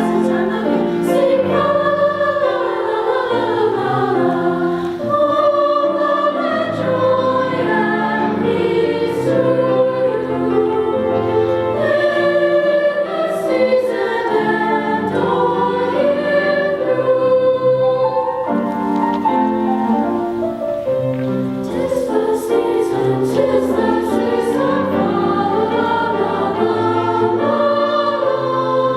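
High school women's chorus singing, several voices in harmony with notes held and moving.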